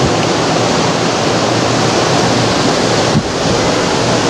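Steady, loud rushing of wind on the microphone in a cable-car gondola riding downhill, with a short knock and dip about three seconds in.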